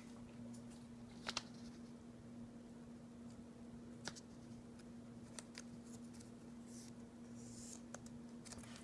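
Faint soft scrapes and a few light clicks of a trading card being slid into a plastic card sleeve, over a steady low hum.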